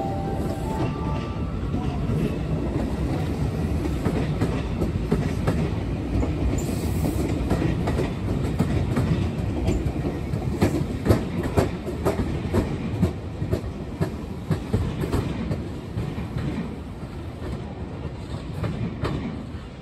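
JR 221 series electric train pulling out and running past. Its steady rumble is joined for several seconds in the middle by rapid clicks of the wheels over rail joints and points, then fades as it moves away near the end.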